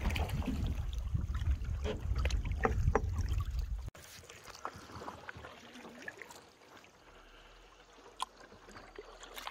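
Canoe paddles dipping and pulling through lake water, with short splashes and light knocks. Wind buffets the microphone for the first four seconds, then it cuts off abruptly and the strokes go on much more quietly.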